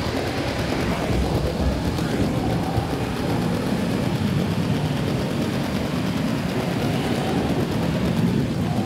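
LEGO 9V train running on plastic track: the motor and wheels give a steady low rumble and rattle.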